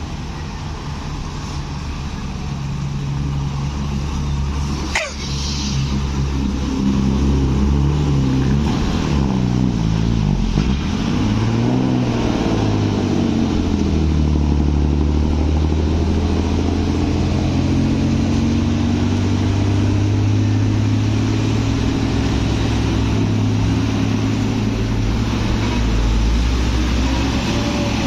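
A heavy vehicle's engine, most likely an intercity bus, grows louder over the first several seconds and then runs loud and close. Its pitch rises and falls a few times as it revs or shifts. A brief sharp high chirp sounds about five seconds in.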